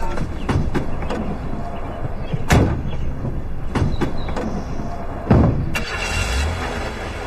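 A Beijing jeep's car doors slam shut twice, a few seconds apart, with a lighter knock between them. Then the engine starts running near the end.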